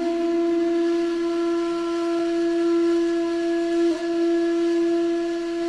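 One long, held, horn-like note at a steady pitch, with a brief wobble about four seconds in. It is offered as a sound meant to remind cats of being worshipped in ancient Egypt.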